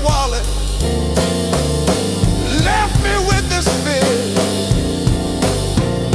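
Blues band music without words: drum kit and bass keep a steady beat under a lead line that bends in pitch.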